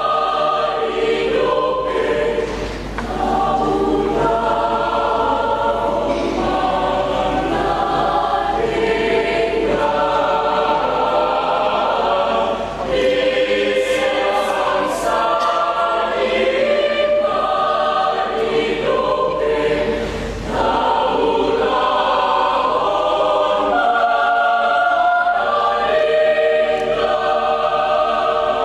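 Church choir singing, the long sung phrases broken by three short pauses for breath.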